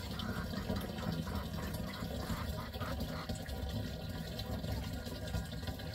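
Water running steadily from a storage tank's brass tap into a plastic jerrycan as it fills.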